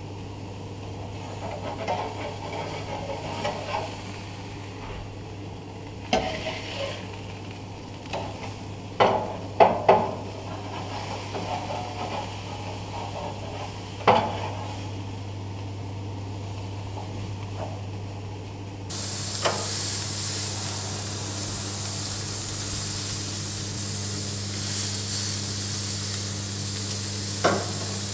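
Swordfish steaks sizzling on a hot gas barbecue grill, with a metal spatula clacking and scraping on the grate several times in the first half. About two-thirds of the way in, the sizzle becomes louder and hissier.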